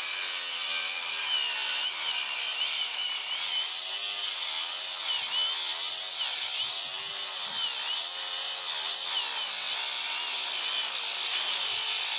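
Diamond grinder cutting into a tiger's eye stone: a steady, loud grinding hiss with a high whine that wavers up and down as the wheel bites.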